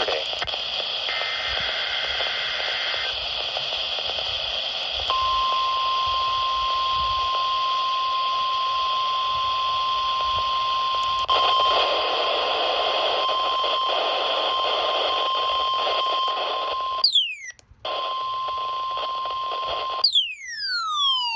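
NOAA Weather Radio broadcast heard through receiver static: two short warbling SAME data bursts in the first few seconds, then, about five seconds in, the 1050 Hz warning alarm tone, a steady single-pitch tone held for about fifteen seconds as part of the weekly tone test. Near the end the tone drops out briefly, with a couple of quick falling whistles.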